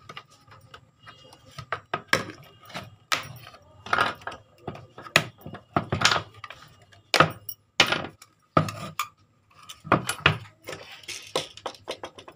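A screwdriver and small screws clicking and clinking irregularly as the screws are fitted into a mini Bluetooth speaker being reassembled.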